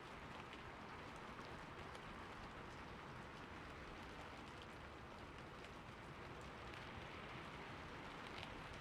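Steady rain falling, a soft even hiss with scattered faint drop ticks.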